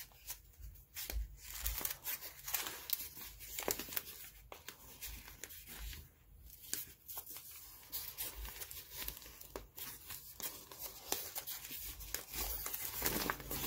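Newspaper crinkling and tearing as it is unwrapped by hand from around a small egg: soft, irregular rustles and rips.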